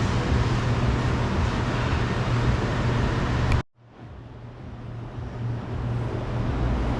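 Steady low hum and background noise, which drops out suddenly about three and a half seconds in and then fades back up.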